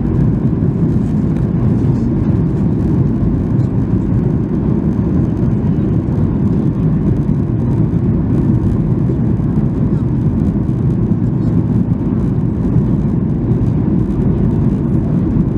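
Steady low rumble inside the cabin of a Boeing 737-800 on approach: its CFM56 turbofans and the rush of air over the wing and extended flaps, heard from a window seat.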